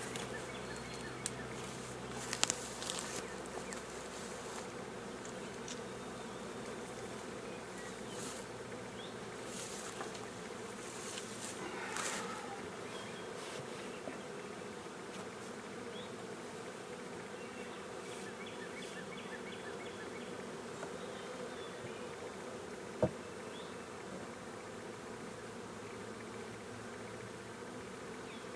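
Honeybee swarm humming steadily around the hive box it has just been moved into, a sign of a newly hived colony settling. A few faint clicks, with one sharp click about 23 seconds in.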